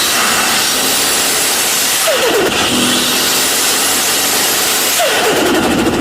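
Turbocharged car engine being revved, its note dropping sharply twice, about two and five seconds in, as the throttle closes, under a loud hissing turbo flutter.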